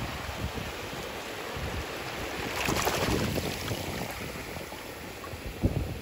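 Shallow surf washing over a bed of loose shells, with wind on the microphone. The wash swells a little before three seconds in, and a few low knocks sound near the end.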